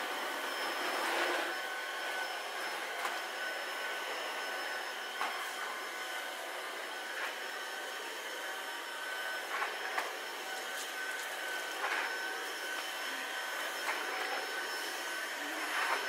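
Cordless stick vacuum running steadily over a rug, a constant high whine over the rush of its suction, with faint ticks now and then.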